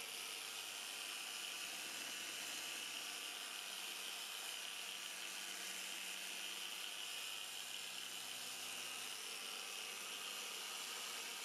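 Compact electric random-orbital sander/polisher with an orange pad running steadily against a frosted plastic headlight lens: an even whirring hiss with a high whine over it. It shuts off suddenly at the very end.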